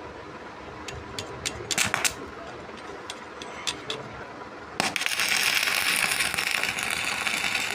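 A few sharp metal clicks and taps, then nearly five seconds in an electric welding arc strikes and crackles steadily.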